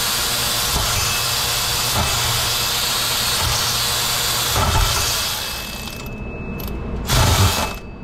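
Quarter-inch electric ratchet running against a water pump pulley bolt that won't break loose, stopping briefly twice near the end.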